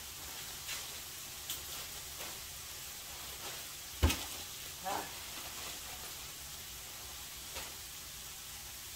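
Chicken frying in a pan with a steady sizzle, broken by a few light clicks and one loud knock about four seconds in.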